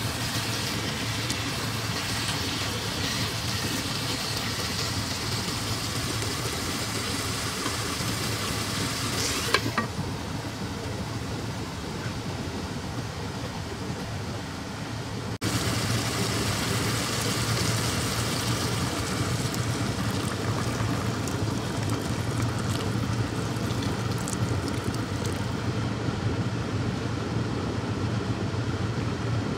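Chicken and potato pieces sizzling in ghee in a pot as they are stirred, ending in a sharp clack about ten seconds in. About halfway the sound changes suddenly to the steady bubbling rumble of the pot of broth at a rolling boil.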